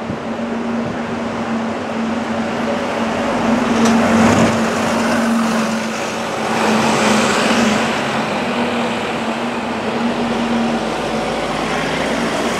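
Street traffic, with a double-decker bus driving away close by, loudest about four seconds in, over a steady engine hum.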